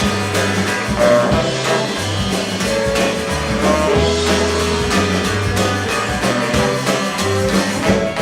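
Live roots-rock band playing an instrumental break: electric guitars over bass and drum kit, with no singing.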